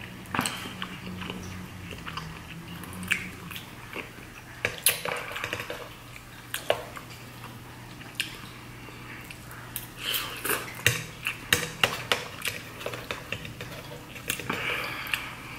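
Metal fork clinking and scraping against a plate as it twirls up ramen noodles, mixed with close-up chewing. Sharp separate clicks come throughout, in a quick run about ten seconds in.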